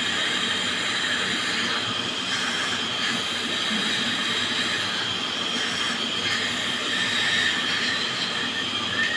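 Dental treatment equipment running during a child's tooth treatment: a steady high whine over a hiss.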